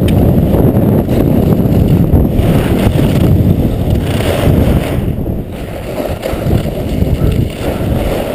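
Wind rushing over a skier's point-of-view camera microphone during a fast giant slalom run, mixed with the scrape of ski edges carving the hard snow. The rushing eases a little past the middle as the skier slows.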